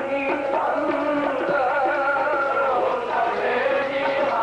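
Sikh kirtan: a man singing a devotional shabad in a long, wavering melodic line over steady held harmonium notes.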